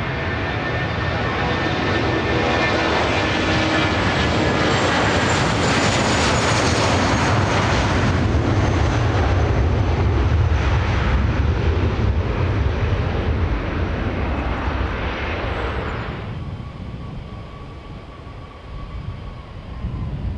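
Jet airliner's engines running loud, a deep rumble with whines that slide down in pitch as it passes, swelling and then easing off. About 16 s in the sound cuts abruptly to a quieter jet whine from another airliner.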